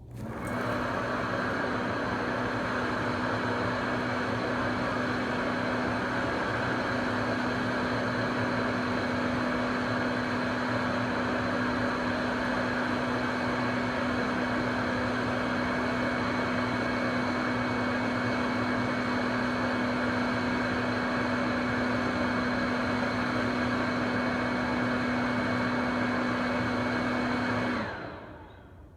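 A high-speed electric blower motor switches on, runs steadily with a whooshing rush of air and a constant humming tone for about 28 seconds, then shuts off, blowing lint out of a dryer vent.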